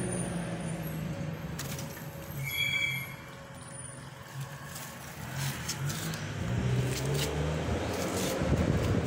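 A motor engine running steadily with a low hum, with a brief high squeal about two and a half seconds in; it grows louder over the last few seconds.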